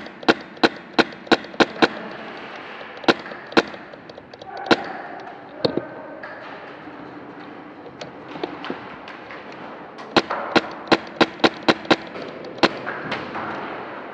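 Airsoft gun firing sharp single shots in quick strings of about three a second, with pauses between strings; a long string runs near the end.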